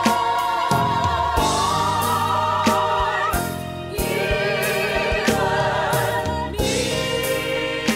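Gospel choir singing sustained harmonies over a backing track with a steady beat and bass line.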